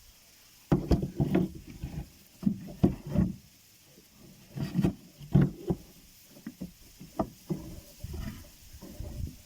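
Irregular hollow knocks and thumps inside a small boat as gear and the hull are handled, in clusters of several strikes.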